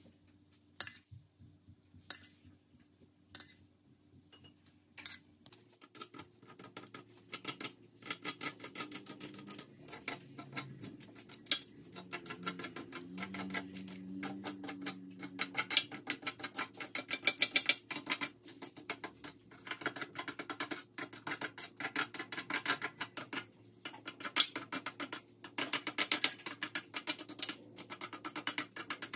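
A metal spoon and fork clinking against a small stainless-steel bowl and the baking tray while melted chocolate is flicked over cookies: a few separate clinks at first, then rapid clicking from about six seconds in, over a faint low hum.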